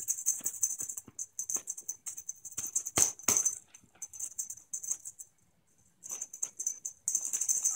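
A kitten climbing a crocheted blanket over a wire-mesh gate makes a rapid, rattly scratching and clicking as its claws catch in the yarn and shake the gate. Two sharper knocks come about three seconds in, and there is a brief lull near the middle.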